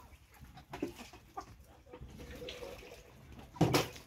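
Chickens clucking intermittently, with a brief loud noisy burst near the end.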